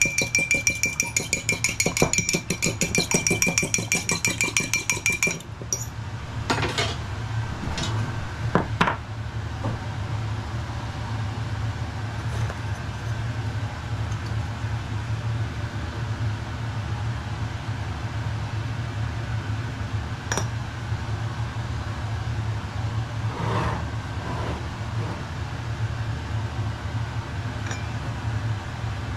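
Metal teaspoon beating an egg in a small ceramic cup: rapid, ringing clinks of spoon against the cup for about five seconds. After that come a few single knocks, over a steady low hum.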